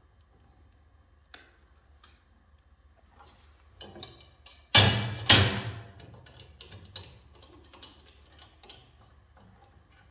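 Metal clicks and clanks as the shaper fence and spindle parts of a Felder CF 741s are handled, with two loud ringing clanks about half a second apart near the middle.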